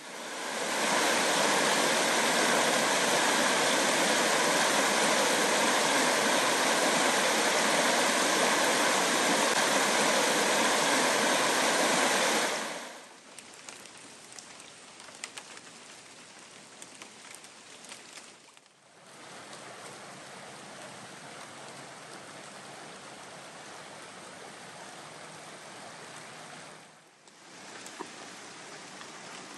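Hillsborough River rapids rushing: a loud, steady rush of water for about the first thirteen seconds. It then drops abruptly to a quieter, steady flow, which breaks off briefly twice.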